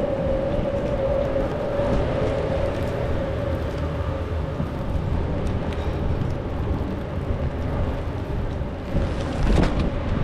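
Wind and rain giving a steady rumbling noise, with a steady mechanical hum that fades out about two-thirds of the way through. A single knock comes near the end.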